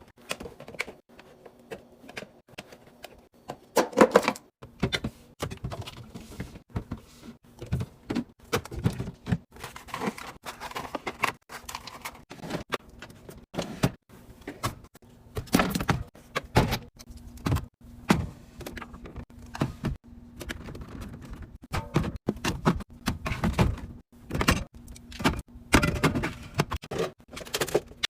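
Rapid, irregular clicks, taps and knocks of containers and packaged items being handled and set down while a fridge is restocked.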